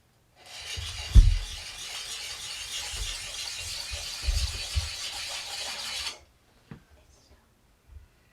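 Abrasive sharpening bit rasping along the steel cutting edge of a Belknap double bit axe in one continuous stroke lasting about six seconds, grinding out nicks in the edge. A few low knocks from handling sound underneath, the loudest about a second in.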